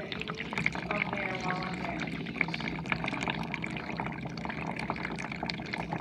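GE dishwasher washing: water spraying and splashing inside the tub in a dense patter, over a steady low hum.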